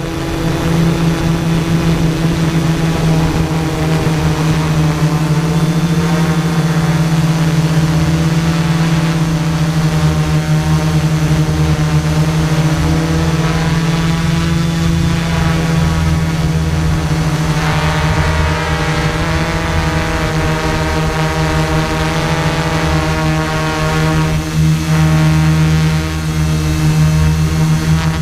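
Quadcopter's electric motors and propellers running, heard from the camera mounted on the craft: a steady drone whose higher tones waver in pitch as the motors adjust while it descends.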